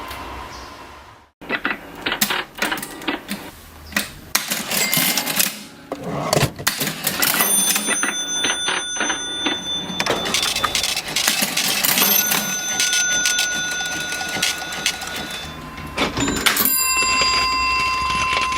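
Vintage mechanical cash register being operated: rapid key clacks and mechanism clatter, with its bell ringing out several times. A brief break about a second in, then the clatter starts up again.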